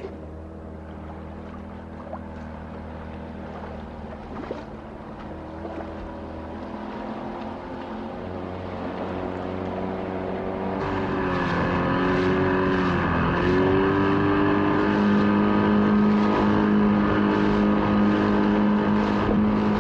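A small speedboat's engine running and growing steadily louder as it approaches, its pitch dipping briefly a little past the middle before settling again.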